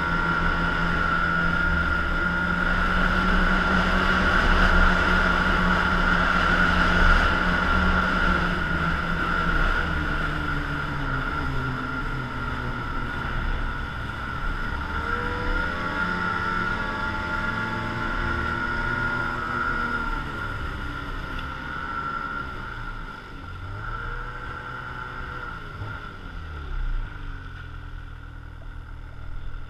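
Snowmobile engine running at speed with a steady high whine over its drone. Through the second half it eases off, its pitch falling and rising a few times as it slows, and it settles lower and quieter near the end.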